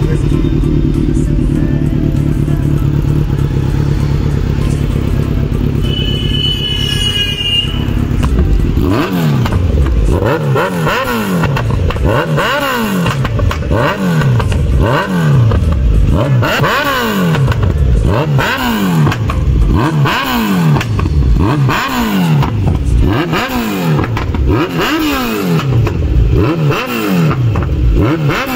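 Kawasaki Z900's inline-four engine, fitted with an aftermarket slip-on exhaust, idling steadily. From about nine seconds in it is revved in quick repeated throttle blips, about one a second, the pitch rising and falling with each.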